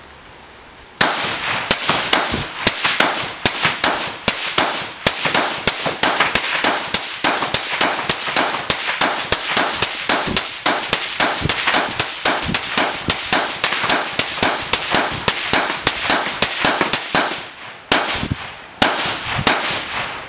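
Suppressed Steyr AUG-type bullpup rifle fired rapidly, about three shots a second, in a long string with a short pause before a few more shots near the end. Each shot is a sharp report with a crack from the bullet striking a sandstone wall, echoing off the quarry.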